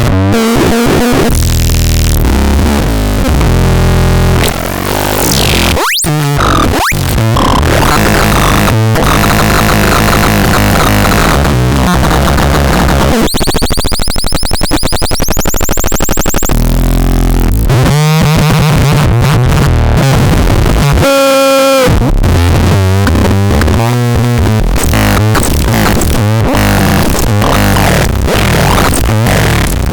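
Electronic sound box played as a noise synthesizer: loud, harsh buzzing tones that jump between stepped pitch patterns, rapid warbles and sweeping glides.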